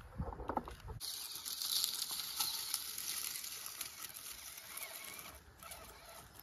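Small electric RC crawler (Axial SCX24 Ford Bronco) rolling over dry fallen leaves, a soft crackling hiss of leaves under its tyres, with the motor itself barely heard. A brief low rumble comes in the first second.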